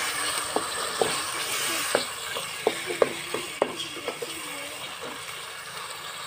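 Wooden spatula knocking and scraping against an aluminium pot while stirring onion and garlic frying in oil, with irregular clacks over a steady sizzle.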